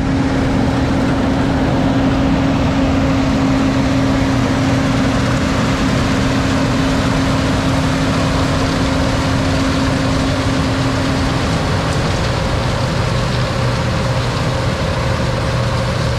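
Combine harvester running steadily under load with heavy machine noise. A steady hum in it drops out about twelve seconds in.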